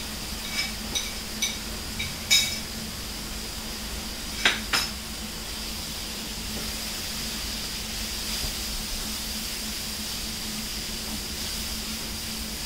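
A spoon clinks against a container about five times in quick succession near the start, then two sharp knocks follow a little later. After that, onion-tomato masala sizzles steadily in the pan as it is stirred with a wooden spatula, over a low steady hum.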